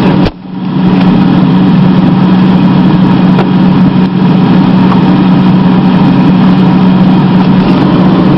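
Steady loud electrical-mechanical hum of a freezer's fan and compressor, heard from inside the closed freezer compartment, after a short break in the sound right at the start.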